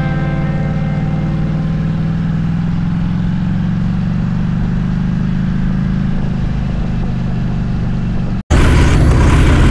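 Motorcycle engine running steadily while riding, a low even hum. About eight and a half seconds in it cuts out for an instant and comes back louder and noisier.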